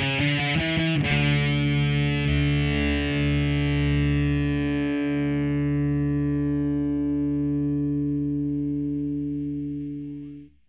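Punk rock song ending: the band plays up to a final hit about a second in, then a distorted electric guitar chord is left ringing for about nine seconds, slowly fading, before it cuts off suddenly near the end.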